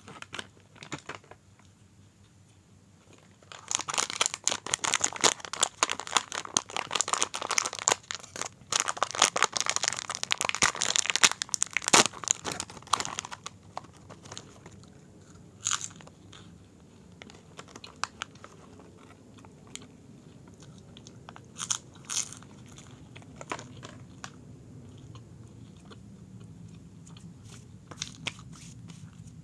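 Close-miked crunching and chewing of the crunchy Nabati Sip snack: after a quiet start, a dense run of loud crunches lasting about ten seconds, then softer chewing with a few isolated sharp crunches.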